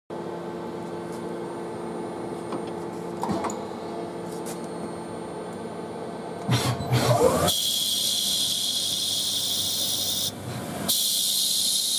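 NC lathe working black Bakelite: the machine runs with a steady hum, clatters about six and a half seconds in, then a steady high hiss starts about a second later and breaks off briefly near ten seconds.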